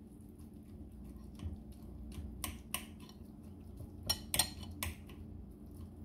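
Table knife chopping spinach in a bowl of beaten eggs, clinking and tapping against the ceramic bowl in a few sharp, irregular clicks that come louder and closer together from about four seconds in, over a low steady hum.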